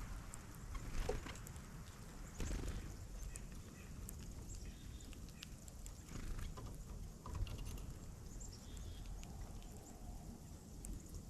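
Small wild birds: scattered light taps and pecks with a few brief, faint high chirps, over a low outdoor rumble.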